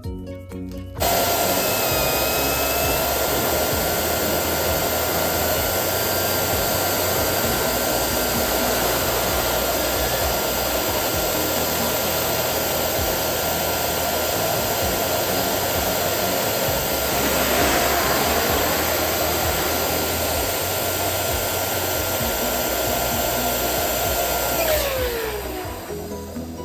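Electric balloon pump running steadily as a balloon is inflated, a steady motor whine that starts abruptly about a second in and winds down with falling pitch near the end.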